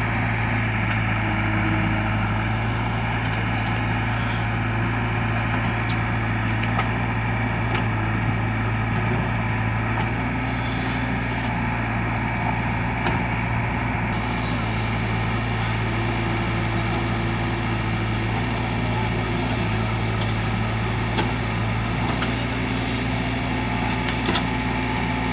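JCB 3DX backhoe loader's diesel engine running steadily while the backhoe arm digs soil, with a few faint knocks.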